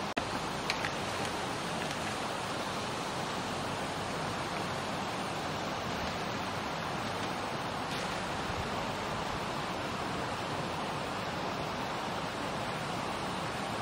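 Steady, even rushing noise with no distinct events, dipping briefly at the very start.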